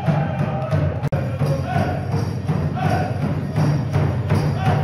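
Native American powwow-style music: a steady drumbeat with singing over it, accompanying the dancing. It breaks off for an instant about a second in and carries on.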